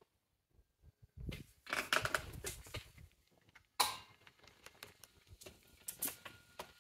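Scuffing and clicking as someone passes through a heavy old wooden door into a stone room, with one sharp knock about four seconds in that rings briefly in the room.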